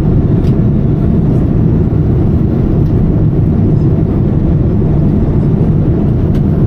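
Boeing 787 passenger-cabin noise in cruise: the steady, loud, low rumble of the engines and the airflow over the fuselage, heard from a seat inside the cabin.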